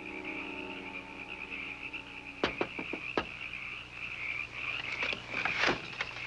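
Continuous high-pitched night chorus of frogs calling, with a few sharp taps about two and a half seconds in and another knock near the end.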